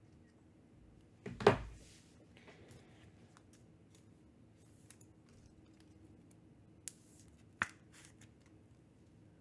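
Trading cards and their packaging handled at a table: a thump about a second and a half in, some light rustling, then a few sharp clicks near the end.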